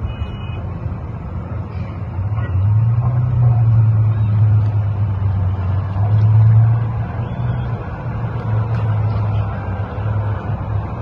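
Low, steady rumble of a nearby road vehicle's engine, swelling about two and a half seconds in and easing off again around seven and a half seconds.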